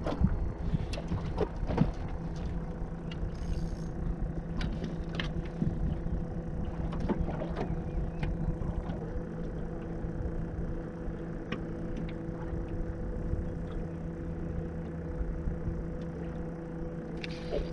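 A motor hums steadily over a low wind rumble, with scattered light clicks and knocks from the fishing gear being handled.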